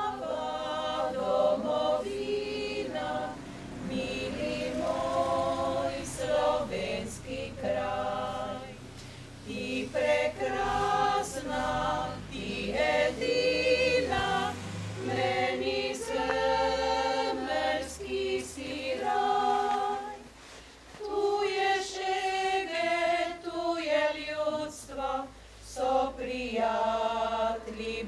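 Small women's choir singing a song a cappella, in sung phrases with a brief pause about twenty seconds in.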